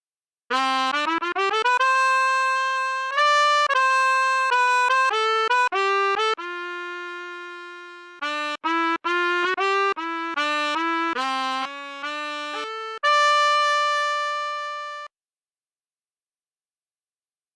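Sampled brass instrument from an SF2 soundfont playing a solo melody. A quick rising run of short notes opens it, followed by held notes and shorter phrases, and it ends on a long high held note that stops abruptly about 15 seconds in.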